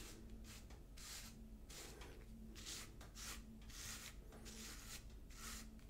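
Electric body-hair trimmer running and cutting through a full beard in repeated short strokes, each stroke a brief hiss, about one or two a second.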